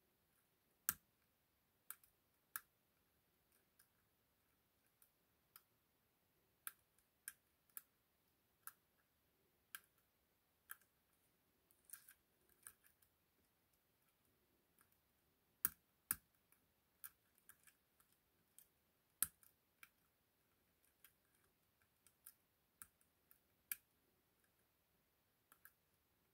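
Small, sharp metallic clicks at irregular intervals from a lock pick working the pins and sidebar of an ASSA 6000 lock cylinder clamped in a vise, a few louder snaps among fainter ticks.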